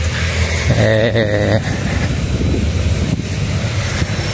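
Wind noise rumbling on the microphone of a handheld camera carried outdoors, with a short wavering pitched sound about a second in.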